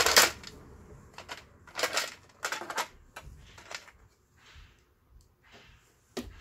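Hard plastic clacks and knocks as the sewing machine's white plastic cover parts are handled and set down on the workbench: a loud clack at the start, several more over the next three seconds, then a quiet spell and one last knock near the end.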